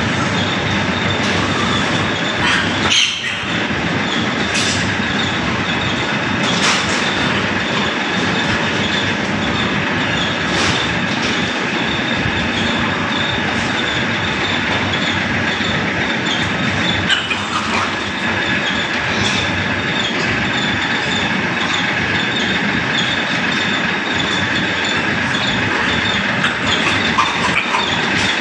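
Steady, loud din of a pig barn's piglet pen, with a thin high whine throughout and a few brief sharper sounds.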